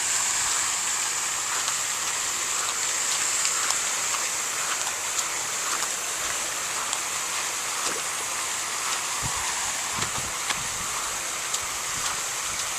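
Steady hiss of running water, with scattered light ticks and splashes throughout and a few soft low thumps in the second half.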